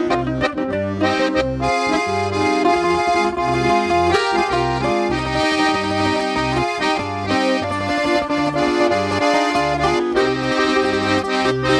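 Instrumental passage on accordion and bouzouki: the accordion plays the melody over steady alternating bass notes on a regular beat, with the bouzouki played along.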